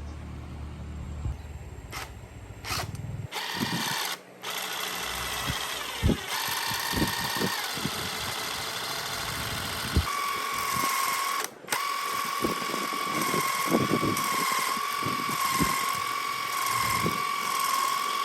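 An electric power tool such as a drill running with a steady high-pitched whine, stopping briefly twice before carrying on. A low rumble fills the first three seconds.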